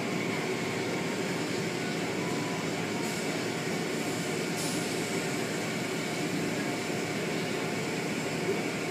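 Automatic car wash equipment running with a steady, even noise and a few faint steady hums.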